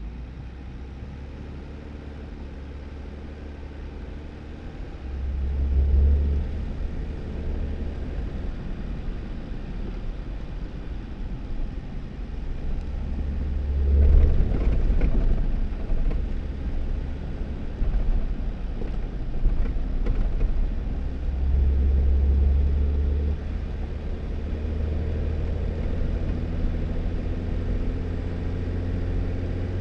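2018 Jeep Wrangler driving on a snowy dirt road: the engine runs and the tyres rumble steadily. The deep rumble swells louder three times, about a quarter, half and three quarters of the way through.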